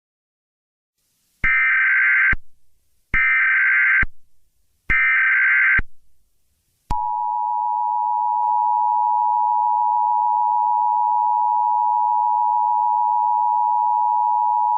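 Emergency Alert System tones: three short screeching data bursts of the SAME header, about a second each. About seven seconds in, the steady two-tone attention signal starts and holds. Together they mark the start of a new alert.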